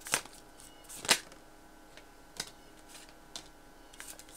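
Tarot cards being handled: a handful of separate sharp card clicks, the loudest about a second in, as a card is drawn from the deck and laid down on the table.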